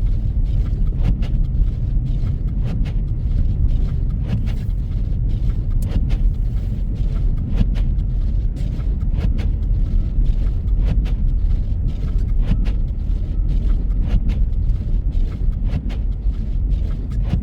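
Car running down a snow-covered road, heard inside: a steady low road rumble with many small irregular clicks and ticks.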